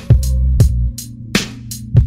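Music with a beat: sharp drum hits over a deep, sustained bass line, no voice.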